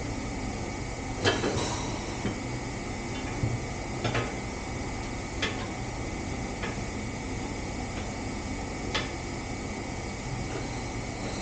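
Scattered sharp clinks and knocks of tools or parts being handled, about half a dozen, over the steady whoosh of a shop fan.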